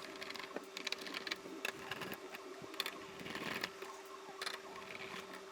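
Small scattered clicks and ticks of a screwdriver backing screws out of motherboard heat sinks and of small metal screws being handled, over a faint steady hum.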